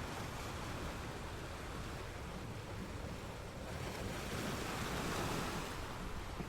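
Ocean surf: a steady wash of water, with a wave surging in and breaking about four seconds in, then easing off.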